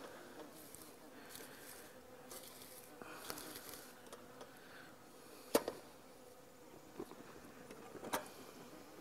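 Honey bees buzzing around the hives, a faint steady hum. A few short hisses come in the first half, and two sharp clicks about halfway through and near the end are the loudest sounds.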